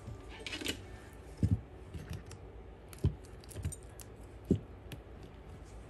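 Handling noise from loose servo wires and small parts on a workbench: scattered light clicks and rustling, with a few dull knocks.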